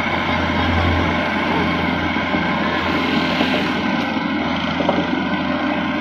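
Kubota DC-93 crawler combine harvester's diesel engine running steadily in a low, even drone as the machine moves through deep mud.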